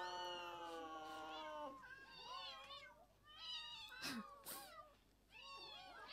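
Cats meowing: one long drawn-out meow, then about four shorter ones.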